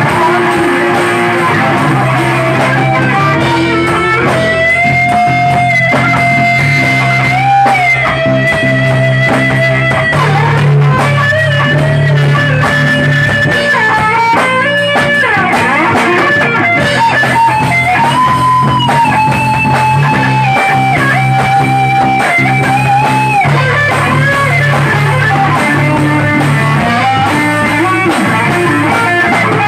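Rock band playing an instrumental passage: an electric guitar carries the lead with long held notes that bend and waver, over bass guitar and a drum kit, with no vocals.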